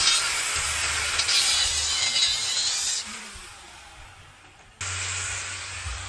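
Angle grinder with a thin disc grinding against the teeth of a steel gear held in a vise. The loud grinding fades away about three seconds in, then starts again abruptly near five seconds, with the motor's steady hum underneath.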